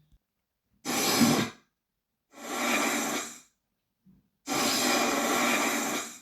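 Creature sound effect: three long, breathy exhalations, like heavy hissing breaths, the third the longest.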